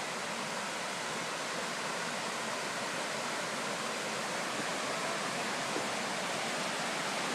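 Steady rush of a waterfall: an even, constant hiss of falling water, growing slightly louder toward the end.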